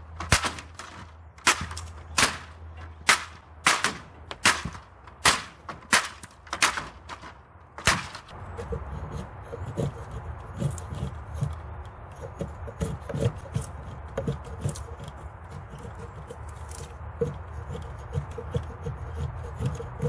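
A small hatchet (JXE JXO mini camping hatchet) chopping into wood: a regular series of sharp chops, about one every 0.7 s. After about eight seconds they give way to quieter, rapid scraping strokes as the blade shaves curls off a stick.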